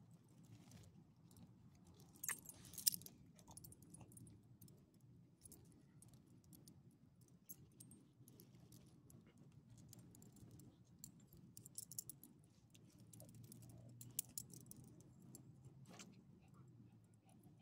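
Faint metal jingling and clicking from a small dog's collar tags and metal leash clip, coming a few times, loudest about three seconds in, over a low steady hum.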